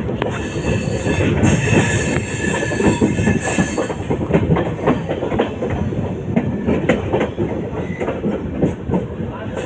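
Moving express passenger train heard from an open coach door: steady running noise of the wheels on the rails, with rapid clicking and clattering over rail joints and points. A faint high wheel squeal runs through the first few seconds.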